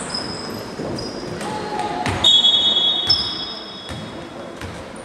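Indoor basketball game on a hardwood-style gym court: sneakers squeak and the ball bounces, then a referee's whistle blast about two seconds in, held for over a second, stopping play.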